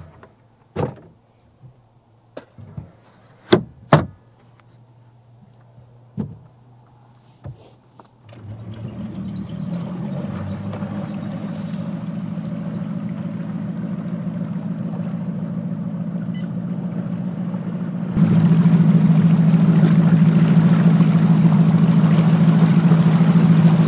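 A few knocks and clicks of gear being handled on a boat deck, then about eight seconds in a bass boat's outboard motor starts running steadily. Near the end it gets abruptly louder, with a rush of wind and water as the boat moves off.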